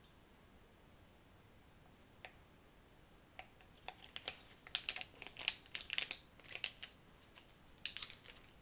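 A small flower-food packet crinkling in the fingers as it is emptied into a glass vase: a dense run of crisp crackles and ticks through the middle, and a shorter burst near the end.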